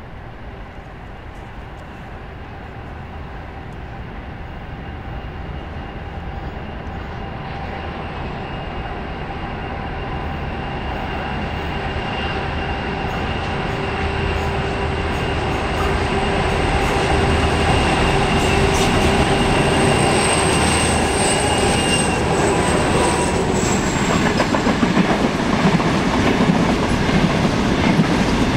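A diesel-hauled grain train draws closer, its locomotive's engine rumble and a steady high whine growing steadily louder. The whine drops in pitch as the locomotive passes. The loaded grain hopper wagons then roll past with a rhythmic clickety-clack of wheels over rail joints near the end.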